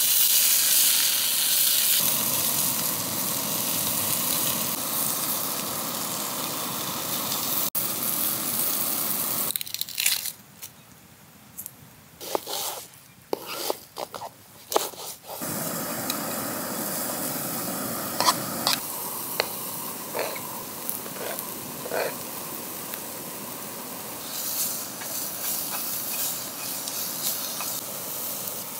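Meat sizzling in a frying pan on a small gas canister stove. Partway through, the sizzle gives way for several seconds to short, crisp knife cuts through an onion on a plastic chopping board, then steady sizzling resumes as sliced onion fries in the pan.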